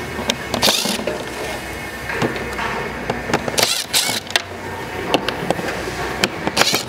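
A cordless drill-driver spinning out Phillips-head screws from a plastic bumper fascia, in short runs of motor whirring, with sharp clicks and clatter of the screws and plastic throughout.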